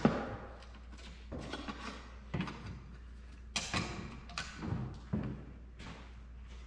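Scattered knocks and thumps with short bursts of rustling as a worker on a stepladder handles a stainless-steel range hood, peeling off its protective film; a knock right at the start, and the loudest rustle about three and a half seconds in.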